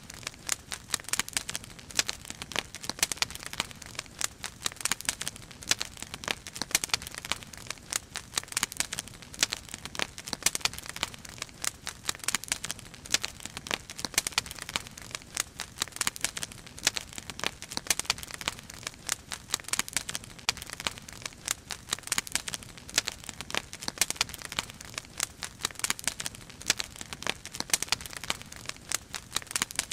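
Wood fire crackling in a fire basket: a dense, irregular stream of pops and snaps that never lets up.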